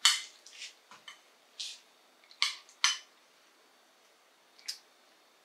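A utensil clinking and scraping against a dish while parsnip puree is stirred and scooped: about six short clinks, the loudest at the start and two more close together a little past halfway, then one lighter clink near the end.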